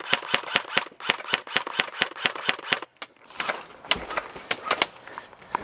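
Airsoft gun firing a rapid string of sharp shots, about five a second. There is a short break about three seconds in, then another run of shots.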